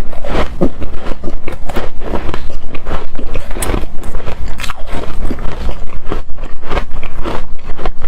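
Close-miked crunching and chewing of hard frozen shaved ice, a dense run of crisp crunches.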